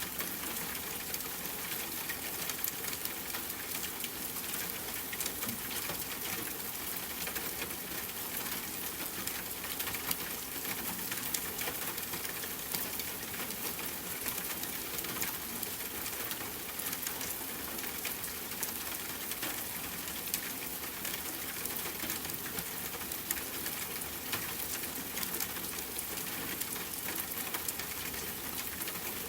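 Steady rainfall mixed with a crackling wood fire: an even hiss with frequent small, sharp pops.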